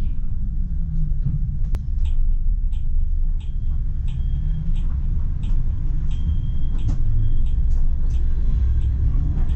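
Low, steady rumble inside the cab of a PESA Swing 122NbT low-floor tram, with a regular ticking about every two-thirds of a second, some ticks followed by a short high tone.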